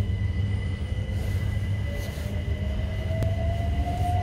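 Inside an electric train pulling away from a station: a steady low rumble from the running gear, with a motor whine that rises slowly in pitch as the train gathers speed.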